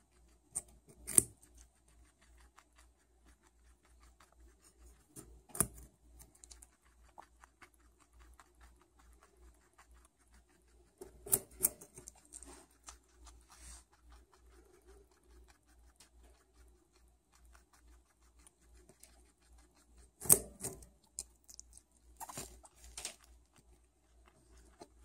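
Guinea pig biting into and chewing a raw carrot: sharp, crunchy snaps every few seconds as pieces are bitten off, about six in all, with quieter crackly chewing between.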